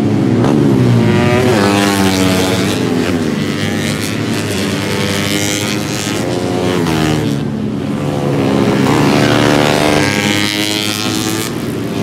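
Racing motorcycles going past one after another, their engine pitch sweeping up and then down as each bike passes. The sound is loudest about a second in and again about nine seconds in.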